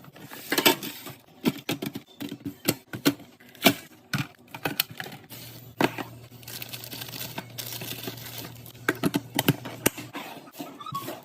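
Irregular clicks, taps and knocks of plastic and glass food containers and packaging being handled and set down while restocking a fridge, with some rustling of packaging.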